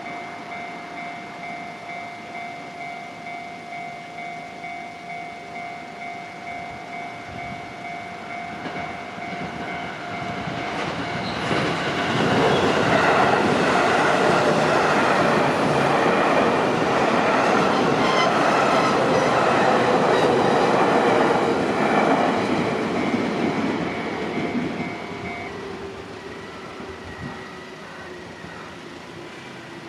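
Japanese level-crossing warning bell ringing in rapid repeated dings while a JR Chuo Line electric train approaches and passes close by. The train rises to a loud rumble of wheels on rail for about ten seconds, then fades; the bell stops a few seconds after the train has gone.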